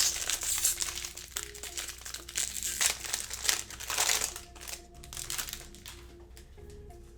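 Foil wrapper of a trading-card pack crinkling as it is torn open and crumpled, dense for about four seconds and then thinning to a few scattered crackles. Faint background music runs underneath.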